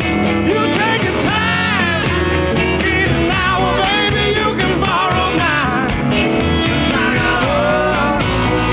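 A band playing a roots-rock song: guitars, bass and percussion under a melody line that slides and bends in pitch.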